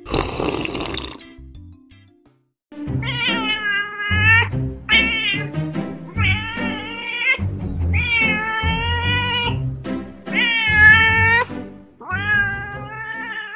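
Cat meowing about six times, each meow long and drawn out with a bending pitch, after a short rush of noise in the first second.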